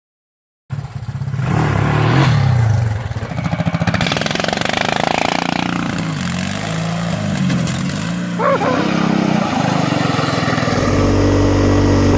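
Vehicle engine running and revving, its pitch rising and falling several times, settling into a steadier, higher note near the end.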